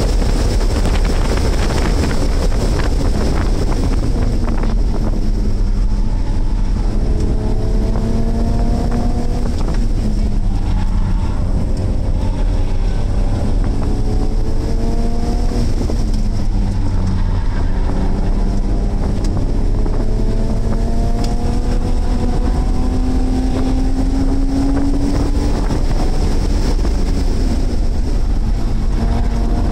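BMW E46 track car's engine heard from inside the cabin at speed, its note climbing in pitch under acceleration and dropping back several times for gear changes and braking into corners, over steady wind and road noise.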